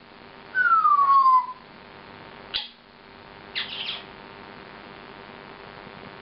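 African grey parrot whistling one loud falling note, then giving a few short sharp squawks.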